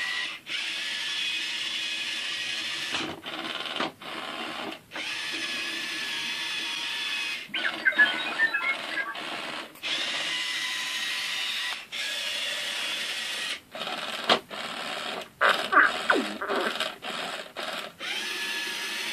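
Battery-powered R2-D2 toy driving under its own power: a small electric drive motor and gears whirring, cutting out briefly every second or two. Twice it breaks into bursts of electronic beeps and whistles.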